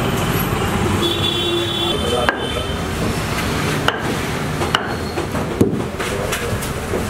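A wooden rolling pin knocking a few times on a stone counter as stuffed dough is rolled out. Steady street traffic noise runs underneath, with a brief horn-like tone about a second in.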